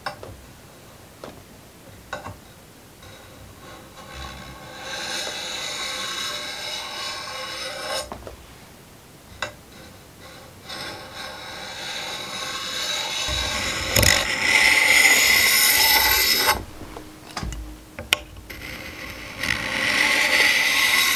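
A hand-held blade scraping the varnish off a Cold Steel Trail Boss axe's hickory handle, in long strokes of several seconds each, with a few short knocks in between.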